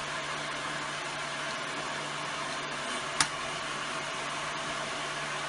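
Heat gun blowing steadily with a constant low hum. A single sharp click about three seconds in.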